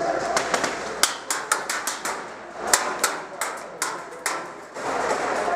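Airsoft gunfire: an irregular scatter of sharp single shots, some in quick pairs, over steady background noise.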